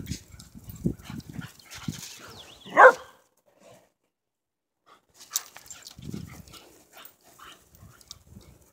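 A dog gives one short, high bark about three seconds in, the loudest sound here, amid the scuffle and thud of two dogs' paws running on grass and gravel.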